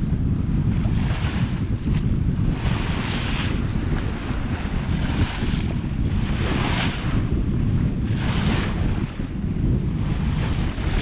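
Wind buffeting the microphone on a sailing yacht under way, with water rushing and splashing along the hull in repeated surges about every couple of seconds.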